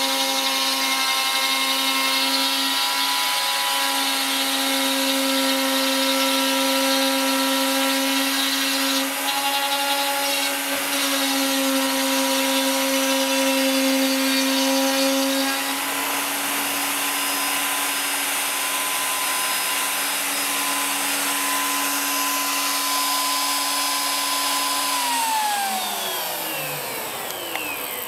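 CNC router spindle running at speed with a steady high whine, then spinning down near the end, its pitch falling steadily as it slows.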